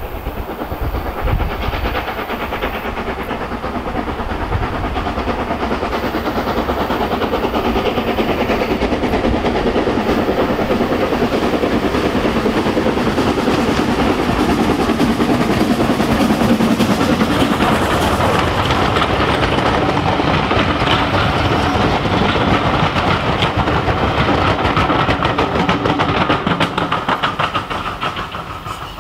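SR Schools Class three-cylinder 4-4-0 steam locomotive No. 30925 'Cheltenham' approaches under steam, its exhaust and running gear growing steadily louder as it passes close by. Then its coaches roll past with a rapid clickety-clack of wheels on the rails, and the sound dies away near the end.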